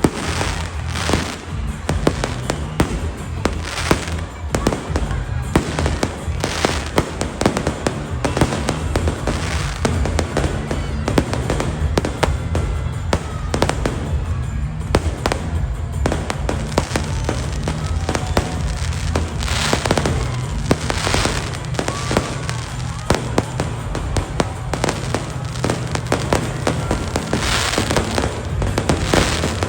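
Fireworks display: a dense, continuous run of sharp bangs and crackling bursts, some louder than others, with music playing underneath.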